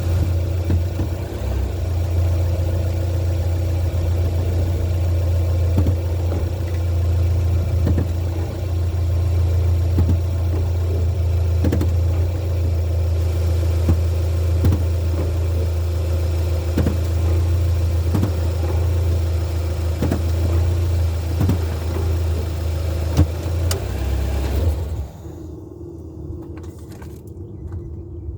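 Nissan Frontier's 2.5-litre four-cylinder engine idling with a steady low hum and faint light knocks about once a second; the owner suspects a bad transmission mount. The engine cuts off near the end.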